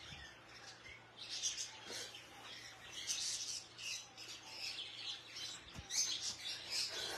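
Small birds chirping over and over in the background, short high calls with no pause longer than a second or so.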